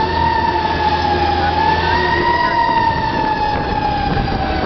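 Fire engine siren heard from aboard the moving truck: one long wail that climbs to its peak about halfway through, then slowly falls in pitch. The truck's engine hums low underneath.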